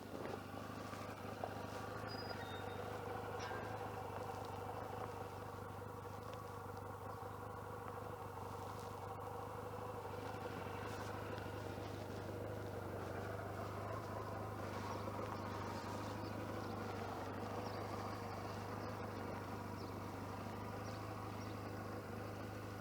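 Motorcycle engine and road noise while riding: a steady drone, muffled because the lavalier mic is inside a jacket pocket, with little wind noise.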